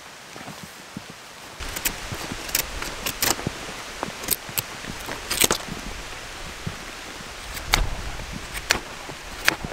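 A knife whittling a point on a wooden stick: sharp, short scraping strokes at irregular intervals, about one a second, over a steady hiss of rain.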